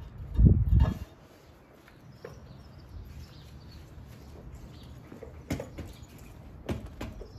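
Heavy wooden post being stood up and seated in a metal post base. There is a low thud about half a second in, then a few sharp knocks of wood against metal, two of them near the end.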